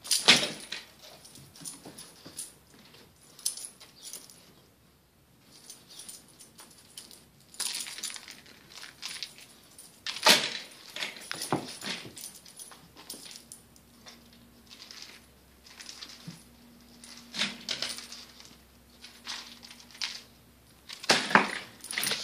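A dog jumping and scrambling at a carpeted cat tree after a dangling cat toy, making irregular sharp clicks and clatters with its collar jingling. The loudest bursts come at the start, about halfway through and near the end.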